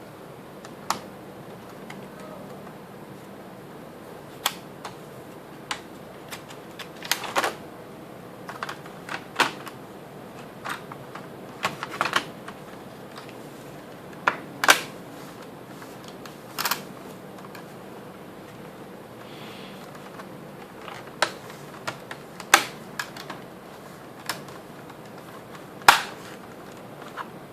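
Sharp plastic clicks and taps at an irregular pace, one to a few at a time, from hands working on an HP Pavilion g6 laptop's casing and keyboard during reassembly.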